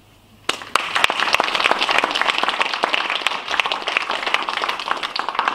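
Audience applauding, starting about half a second in and stopping abruptly near the end.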